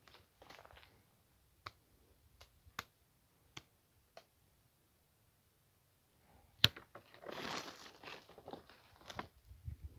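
Hand pruning shears cutting quince branches: several sharp snips of the blades closing, the loudest about two-thirds of the way in, followed by a couple of seconds of rustling twigs and leaves.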